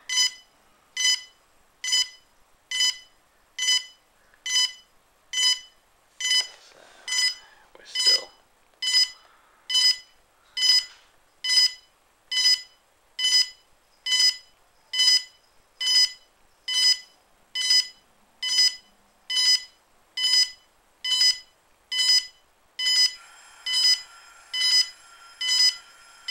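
DJI Phantom 2 Vision+ quadcopter beeping during a firmware upgrade: a short, high beep about once a second, steady and even. The beeping is normal while the update runs.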